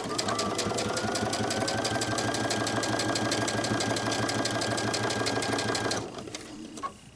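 Baby Lock Crescendo computerized sewing machine sewing a straight stitch: rapid, even stitching over a motor whine that rises as the machine speeds up, then stops about six seconds in.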